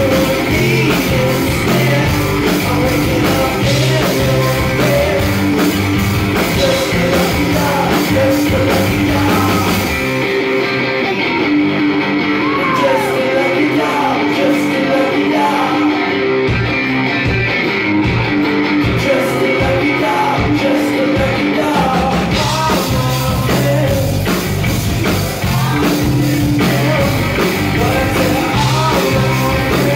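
Rock band playing live: electric guitars, bass and drums with a male lead vocal. About ten seconds in, the cymbals and low end drop away for a sparser passage, and the full band comes back in about twelve seconds later.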